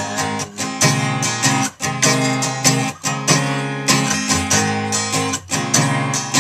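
Acoustic guitar strummed in a steady rhythm, an instrumental passage between sung lines, with the last sung word at the very start.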